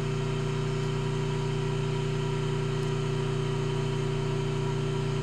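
Steady electric hum of a Hardinge HC chucker lathe running on three-phase power, idling between cuts, even and unchanging.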